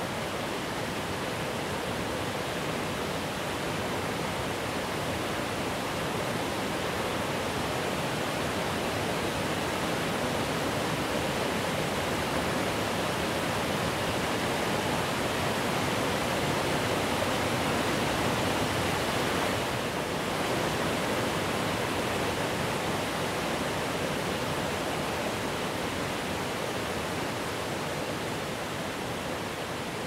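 Steady rush of falling water from an 85-metre waterfall, an even noise without any tone, swelling slightly toward the middle and dipping briefly about twenty seconds in.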